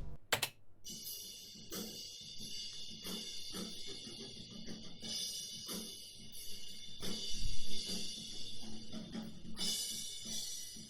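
Drum kit playback heard only through the side (figure-8) microphone of a mid-side pair, its signal duplicated with the polarity flipped and panned hard left and right: cymbals and hi-hat wash to the fore, with thinner snare and kick hits beneath. The result is a very weird, extremely wide stereo panorama that would cancel out if summed to mono.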